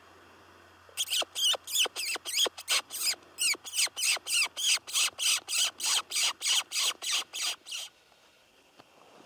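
Predator call sounding a rapid run of shrill mouse squeaks, each falling in pitch, about four a second, starting about a second in and stopping after some seven seconds; it imitates a mouse in distress to lure a coyote.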